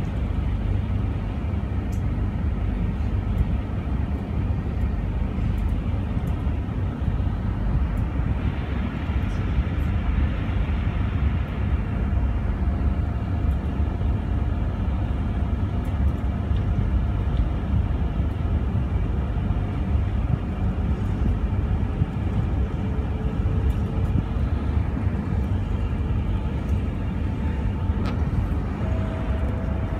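Electric passenger train heard from inside the carriage, running with a steady low rumble as it pulls away. A faint electric motor whine rises slowly in pitch through the second half as the train gathers speed.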